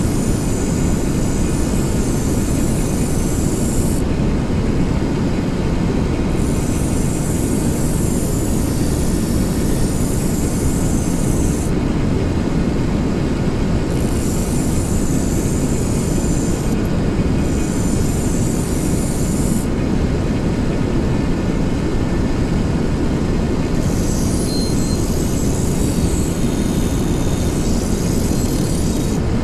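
Small portable gasoline generator (Sportsman 1000 W) running steadily under load. A higher hiss comes and goes over it in stretches of a few seconds, five times.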